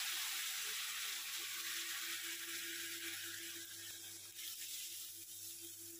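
Cooked chana dal with bottle-gourd pieces sizzling in hot tempering oil in a kadai, the hiss dying down gradually as the oil cools under the added dal. A faint steady hum runs underneath.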